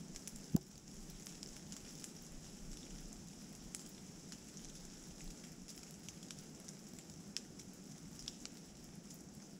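Rain falling in the woods: a steady hiss with scattered ticks of drops hitting leaves and the ground, and one louder knock of a drop about half a second in.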